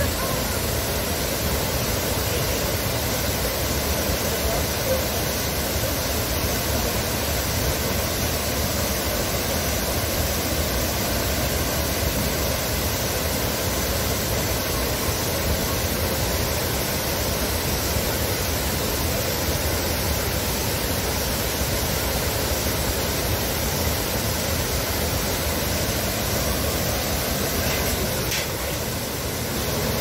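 Waterfall pouring over a stone wall into a bathing pool, a steady rush of falling water.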